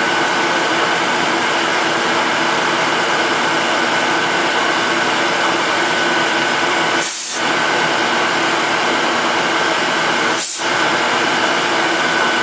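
Vertical milling machine running, its end mill cutting a detent into a 1911 pistol slide stop: a steady mechanical whir with a few held tones, which dips briefly twice, near the middle and again later on.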